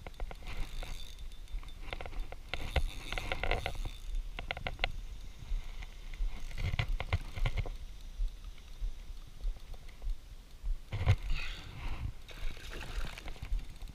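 Spinning reel being cranked in short bursts of rapid clicking while a hooked fish is fought and brought toward the kayak.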